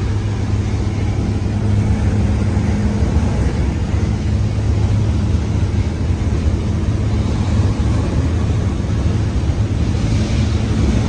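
Truck engine running in a steady low drone, with road and wind noise heard inside the cab while cruising on a highway.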